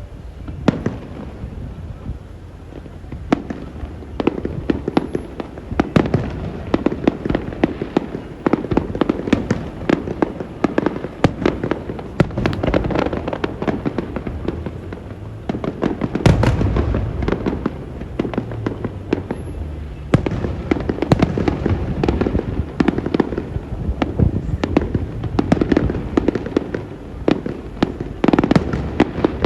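Fireworks display: a dense, irregular run of bangs and crackling shell bursts, with a heavier deep boom about halfway through.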